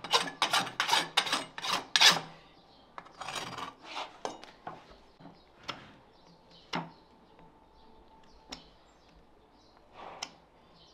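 Farrier's rasp filing a horse's hoof: a quick run of scraping strokes for about two seconds, then slower, scattered strokes and a few light knocks.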